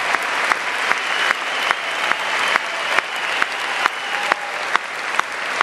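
Concert audience applauding in a theater, with a steady beat of louder single claps about twice a second over the dense clapping.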